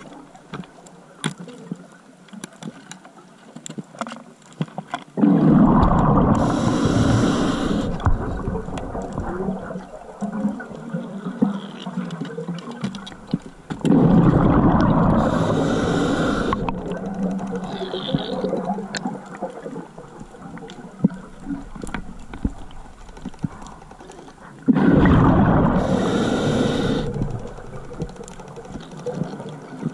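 Diver breathing underwater through a scuba regulator: three loud bursts of bubbling exhalation about ten seconds apart, each with a short hiss and fading over several seconds, and faint scattered clicks in between.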